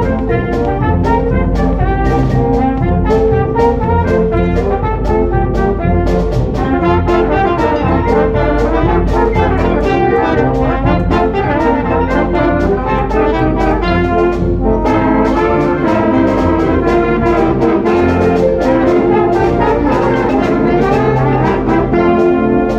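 Loud band music led by brass, over a quick, steady drum beat.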